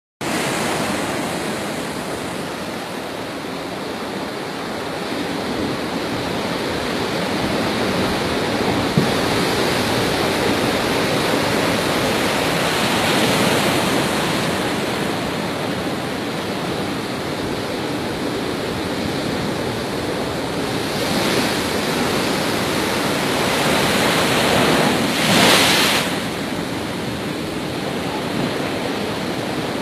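Heavy cyclone storm surf: big waves breaking continuously into white water in a steady rushing wash. The surge swells several times, with the strongest wave crashing about 25 seconds in.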